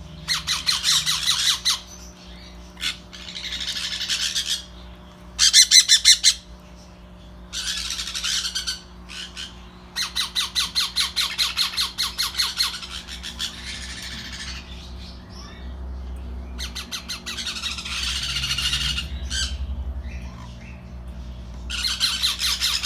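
Baby parrots squawking in raspy bursts of one to two seconds, each burst a fast run of pulses, repeated many times with short pauses between.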